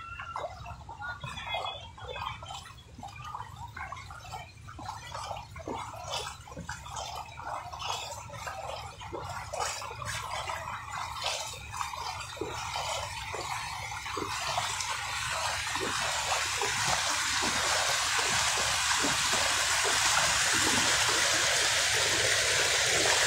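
Splashing and gurgling of shallow floodwater as someone wades through it, then a steady rush of flowing floodwater that grows louder through the second half.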